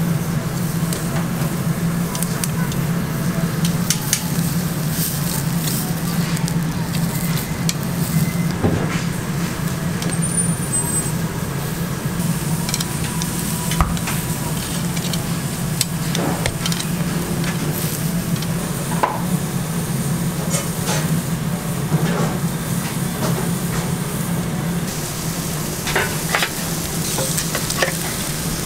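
Food sizzling on a charcoal grill, with scattered short clicks of metal tongs against the grill grate as pieces are turned, over a steady low hum.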